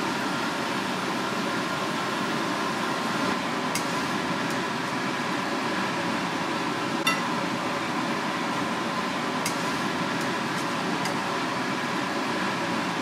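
Steady hum of kitchen machinery, with a few light metal clinks of a ladle against pot and plate; the sharpest clink comes about seven seconds in.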